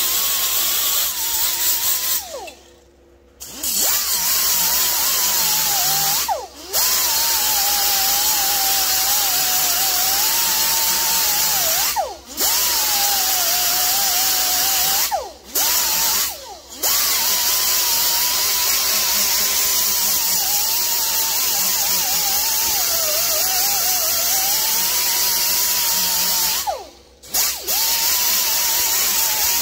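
Right-angle die grinder grinding on a chainsaw's metal exhaust pipe, running in spells broken by several short stops. Its whine wavers up and down as the bit bears on the metal. The pipe is being ground down around a small hole to prepare it for patching.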